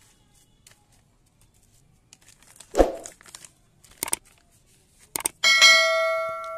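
Plastic and foil seed packets rustling and crinkling as they are handled, with a thump about three seconds in. Near the end come two sharp clicks and then a ringing bell chime that fades away: a subscribe-button sound effect.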